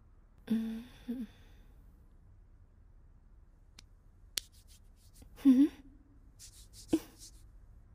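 A woman's sleepy sighs as she wakes: a breathy sigh about half a second in, a shorter one just after, and a longer sigh that rises and falls past the middle, with a few faint clicks between them.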